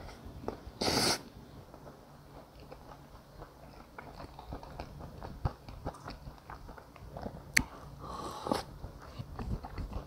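Close-miked chewing and biting of sweet and sour pork and noodles, a run of small irregular wet clicks and ticks, picked up by a clip-on microphone. Two short, loud rushes of noise break in, one about a second in and one near the end.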